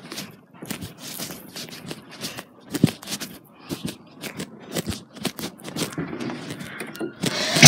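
Footsteps and rustling handling noise from a phone being carried while walking, a run of irregular soft clicks and scuffs. Near the end the noise swells, and a single loud sharp hit lands right at the close.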